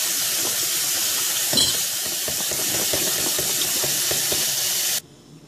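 Kitchen tap running onto fiddleheads in a collapsible colander as they are rinsed: a steady rush of water splashing over the fern shoots. It cuts off suddenly near the end.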